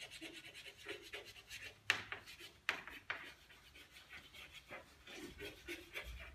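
Chalk scratching and tapping on a chalkboard as a line of handwriting is written, in quick short strokes, with two sharper chalk taps about two and three seconds in.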